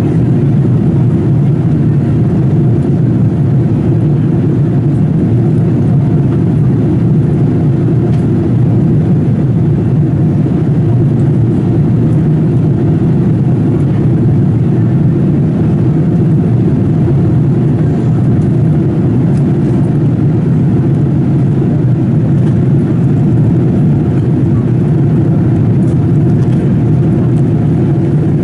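Steady low rumble of engine and airflow noise inside the cabin of a Boeing 787-8 in flight.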